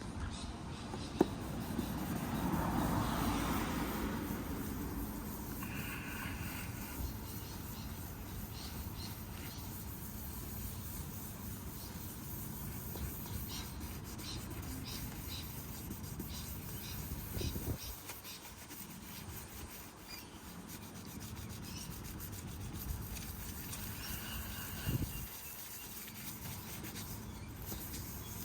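Hand sanding a plastic car headlight lens with a Turtle Wax restoration kit's numbered sanding pads: a steady scratchy rubbing that swells for a couple of seconds early on, with a sharp click about a second in.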